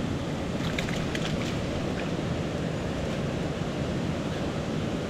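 Mountain stream water rushing steadily, with a few light clicks about a second in.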